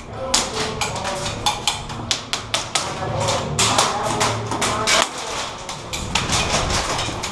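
A quick, irregular string of sharp taps and clicks, several a second, over a steady low hum.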